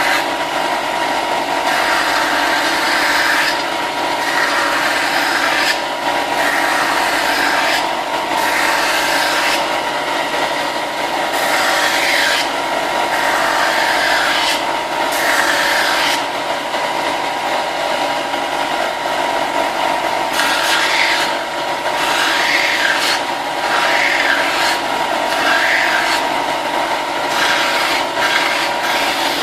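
Power sander running steadily, with a rasping scrape that swells and fades every second or two as the plastic armor pieces are pressed against it and worked along their edges.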